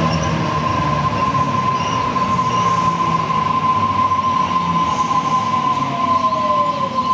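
Double-deck electric passenger train running along the platform, a steady high whine over a low rumble, with a second whine falling slowly in pitch.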